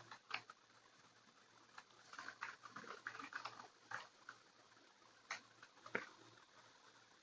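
Faint, scattered clicks of computer keys being typed, a short flurry of them a couple of seconds in, with near silence between.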